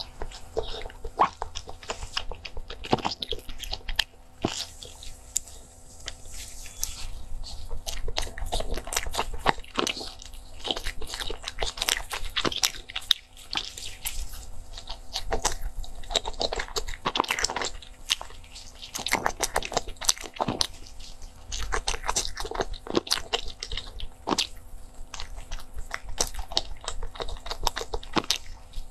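Close-miked eating of crusty baked bread: crunching and chewing, with the loaf torn apart in plastic-gloved hands, many small sharp crackles close together.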